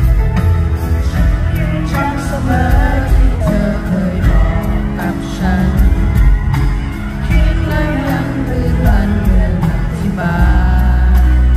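A woman singing a Thai pop song live with a band, bass and drums heavy, heard through a concert PA from the arena seats.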